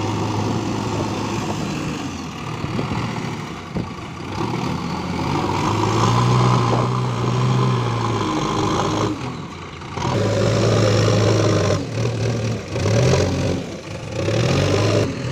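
JCB backhoe loader's diesel engine running under load, revving up and down repeatedly as the machine drives and works its front loader bucket, scooping and lifting a full load of soil.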